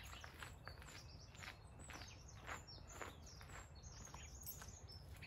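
Quiet outdoor ambience with faint birds chirping and soft, irregular footsteps of a person walking with a dog on a leash.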